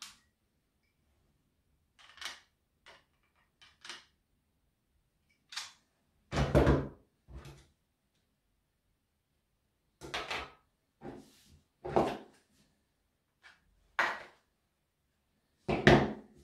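Removed chainsaw parts, the plastic starter cover and air guide plate, being picked up and set down on a wooden tabletop: about a dozen separate knocks and clatters with silence between them, the loudest a little over six seconds in.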